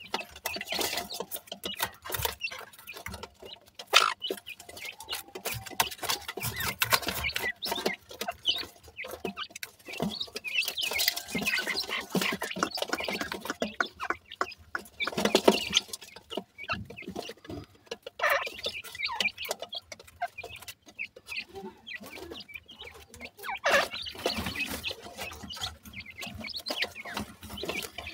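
Francolin chicks making short clucking calls while pecking and scrabbling at a clump of food and soil in a metal basin, with many small irregular clicks and scratches.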